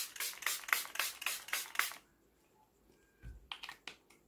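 Glow setting spray in a pump mist bottle being sprayed rapidly onto the face, a quick run of short hisses at about four a second that stops about two seconds in. A soft thump and a few faint handling clicks follow near the end.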